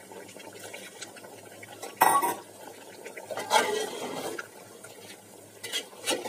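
Long metal spoon stirring beef curry in a metal pot, scraping through the meat and gravy and knocking against the pot. The loudest knock comes about two seconds in, a longer scrape follows around three and a half seconds, and a few clicks come near the end.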